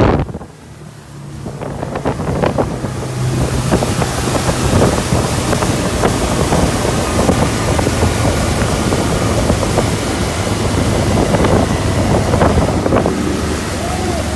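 Outboard motor on a speedboat running at speed: a steady low engine drone under the rush of water from the wake and wind buffeting the microphone. Quieter for the first second or two, then builds to a steady level.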